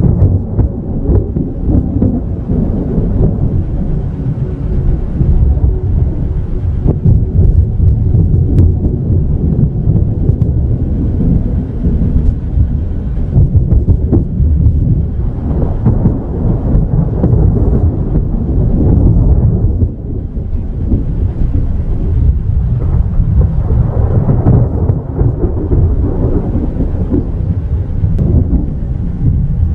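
Thunderstorm: a low, continuous rumble of thunder that swells louder several times, with rain.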